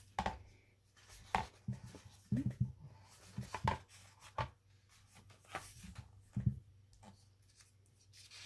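Hands handling an album photobook: glossy pages turned and the book shifted on the table, giving an irregular scatter of soft knocks, taps and paper rustles.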